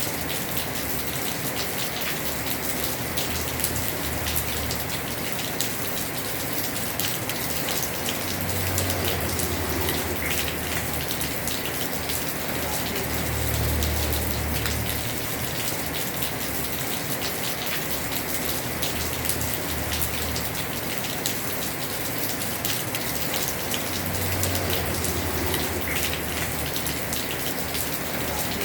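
Heavy rain falling on a house roof: a steady dense hiss of drops with fine pattering ticks. A low rumble swells up three times for a few seconds each.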